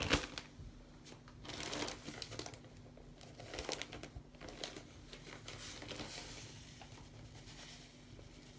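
Plastic bag of powdered laundry detergent crinkling as it is handled and tipped over a sponge to shake powder out, in several short bursts of crackle. The sharpest crackle comes right at the start.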